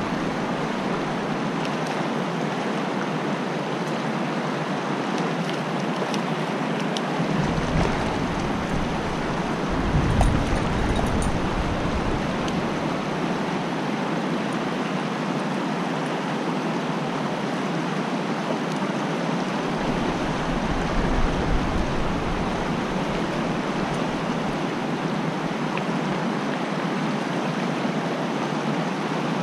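Fast creek current rushing over rocks, a steady wash of water noise, with low rumbling now and then.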